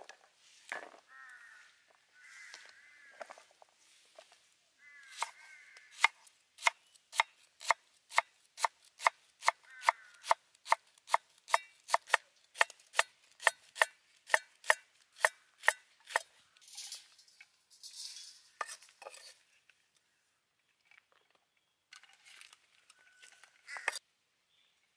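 Chef's knife slicing a red onion on a wooden cutting board: an even run of sharp chops, about three a second, lasting roughly ten seconds, then scattered softer scrapes and taps.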